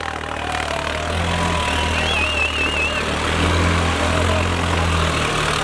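Tractor diesel engine running steadily at a low, even speed as the tractor balances on its rear wheels in a wheelie stunt. A short warbling whistle sounds over it about two seconds in.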